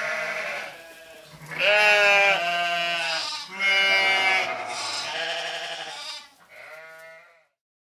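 Bleating, like sheep or goats: about six quavering calls in a row, the last one quieter, then the sound stops short of the end.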